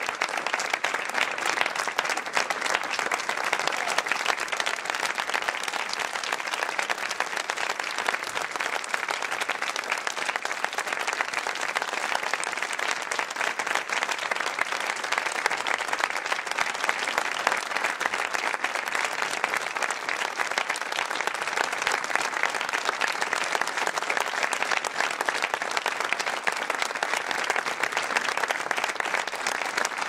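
A theatre audience applauding steadily for the cast's curtain call: dense, continuous clapping with no pause.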